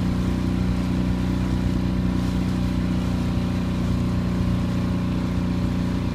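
Small motorboat's engine running steadily at cruising speed, an even low hum with no change in pitch.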